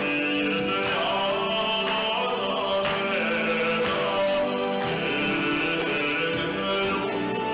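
A young man singing a Buryat song into a microphone, with musical accompaniment; long, held notes.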